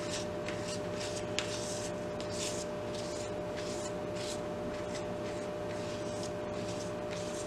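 Palette knife spreading paint across a paper page: repeated soft scraping swishes.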